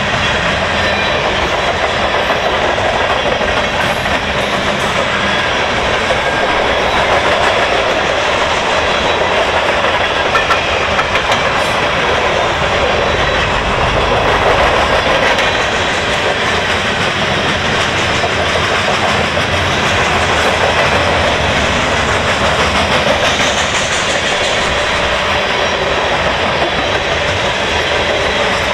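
Freight cars of a long freight train, mostly tank cars with a covered hopper and a lumber-loaded flatcar, rolling past close by: a loud, steady noise of steel wheels on rail with the clatter of wheels over rail joints.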